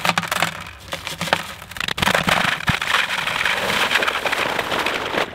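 Dry concrete mix pouring out of a paper sack into a plastic 5-gallon bucket: scattered crackling at first, then a steady rushing hiss of powder and grit from about two seconds in.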